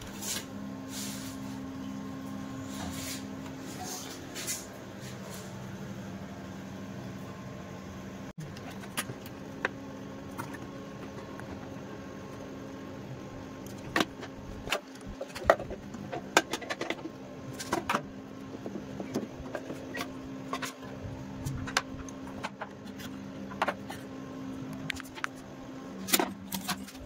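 Steady low mechanical hum with sharp clicks and knocks scattered over it, more frequent in the second half, as parts and tools are handled while a water heater is taken apart for cleaning.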